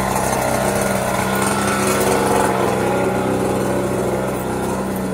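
A small engine runs steadily at a constant speed, giving a steady hum.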